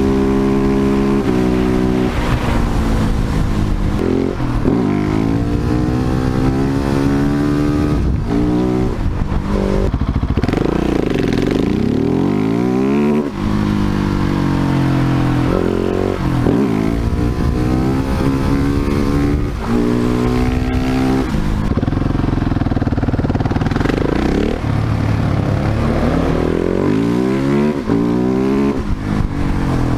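Husqvarna 701 Supermoto's single-cylinder four-stroke engine under way, its pitch climbing as it accelerates and dropping back, over and over.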